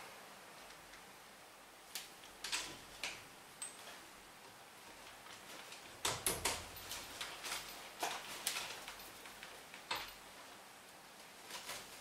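Scattered light metallic clicks and clinks of a socket and ratchet wrench being fitted onto and worked on an engine's cylinder head bolts, irregular and in small clusters, busiest in the middle of the stretch.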